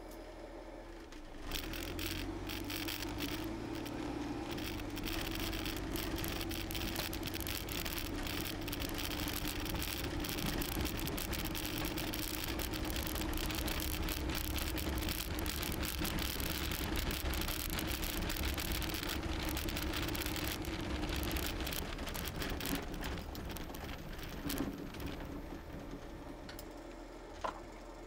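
Inside a remote-controlled full-size automatic car driving across a grass field: engine running under load with tyre noise and rattling through the cabin, setting off about a second and a half in and easing off a few seconds before the end, followed by a couple of sharp clicks.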